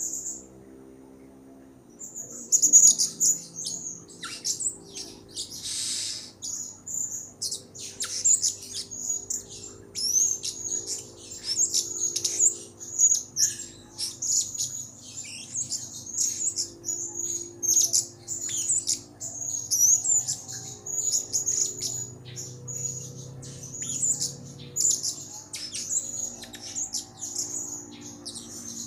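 Blue-crowned hanging parrot (serindit) chirping and twittering in a lively, near-continuous stream of rapid, thin, high-pitched calls, starting about two seconds in after a brief pause.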